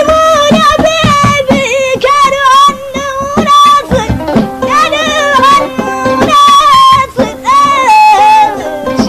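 Traditional Mauritanian music: a high voice sings a heavily ornamented, wavering melody over a plucked string instrument.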